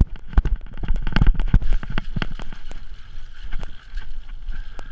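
Mountain bike descending a muddy, rutted dirt trail: tyres running through wet mud, with many sharp knocks and rattles from the bike over bumps, and wind rumbling on the helmet-mounted microphone.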